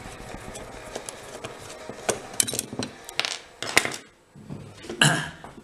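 Small metallic clicks and clinks from a screwdriver and screws working on a mortice lock's metal case as the case screws are taken out. The clicks are scattered and irregular, with a few sharper ones in the middle and a louder one near the end.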